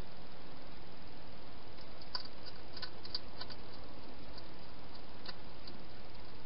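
Hedgehog eating from a bowl inside a plastic feeding box: a run of faint crunchy clicks of chewing about two to three and a half seconds in and one more near five seconds, over a steady hiss.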